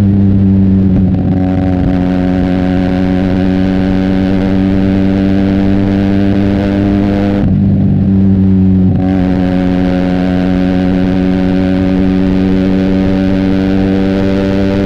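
Benelli TNT 300's parallel-twin engine running through an Austin Racing aftermarket exhaust, cruising at a steady, even engine speed. About seven and a half seconds in, the rider eases off the throttle for a moment before pulling again.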